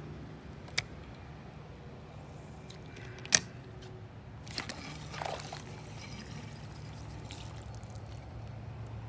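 Water splashing and dripping as a hooked bluegill is reeled up to a canoe on a spinning reel, with two sharp clicks, the louder about three seconds in.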